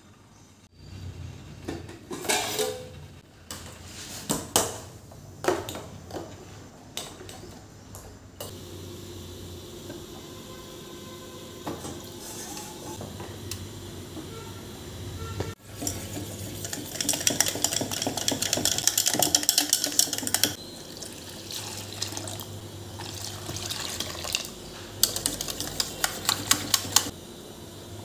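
Kitchen prep sounds from a stainless-steel bowl. A few separate knocks and clatters come in the first seconds. Then come two stretches of a few seconds each of rapid, dense metal clicking with liquid sloshing: a wire whisk beating a gram-flour batter against the bowl.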